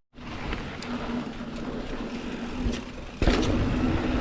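Mountain bike rolling over a dirt trail: steady tyre and wind noise on a body-mounted camera. About three seconds in there is a sudden thump as the bike lands a small drop, and the riding noise is louder after it.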